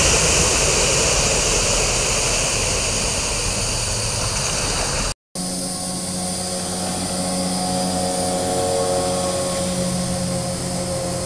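Mako boat's outboard motor running at speed as the boat passes, engine and wake rush fading as it pulls away. After a cut about five seconds in, a steadier, more distant engine drone with a steady hum.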